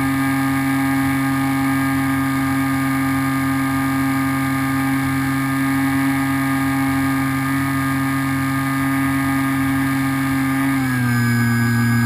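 Electric motor and propeller of an HK Raptor radio-control plane running at a steady pitch in flight, with a slight step down in pitch near the end.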